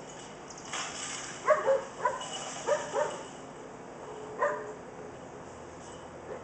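A puppy barking in a quick run of five or six short, high yappy barks over about three seconds, the last one a little apart from the rest.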